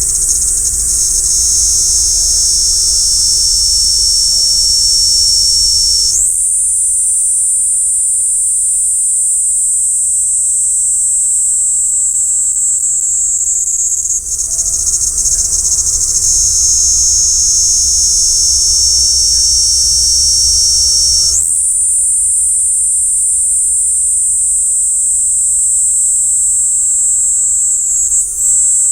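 Kaempfer cicada (niiniizemi) singing a continuous, high-pitched shrill drone, picked up close through a parabolic microphone. The pitch steps up abruptly about six seconds in, drops back around fourteen seconds, and steps up again a little past twenty seconds.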